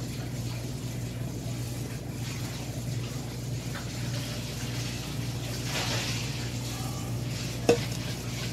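Thin stream of melted clarified butter trickling from a stainless steel saucepan into a ceramic bowl over a steady low hum. Near the end there is a single sharp clack as the pan is set down on the steel counter.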